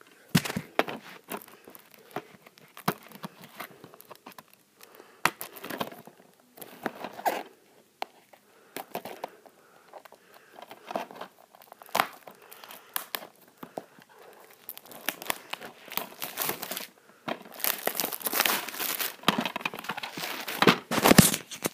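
Plastic wrapping being torn and crumpled off a DVD case: irregular crinkling and tearing with sharp crackles, densest and loudest near the end.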